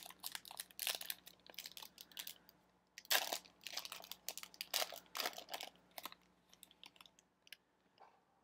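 Foil wrapper of a Panini Chronicles Football card pack crinkling and tearing as it is ripped open by hand, in irregular crackling bursts with a short pause about three seconds in, thinning out near the end as the cards come out.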